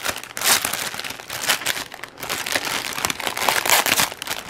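Thin clear plastic bag crinkling in irregular rustles as hands squeeze and turn it over.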